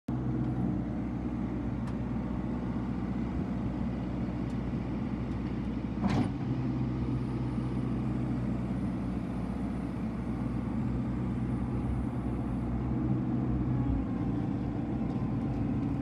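New Holland C175 compact track loader's diesel engine running steadily while its lift arms are raised and lowered. One sharp clank about six seconds in.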